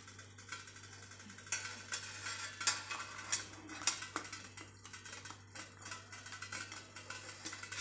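Stainless-steel tongs clinking and scraping against a steel tatte-idli plate and the idli steamer stand: a string of sharp, irregular metallic clicks, starting about a second and a half in, as the plate is gripped for lifting out.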